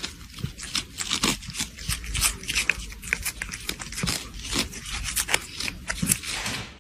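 Two cats licking a squeeze-tube cat treat: a quick, irregular run of licking clicks.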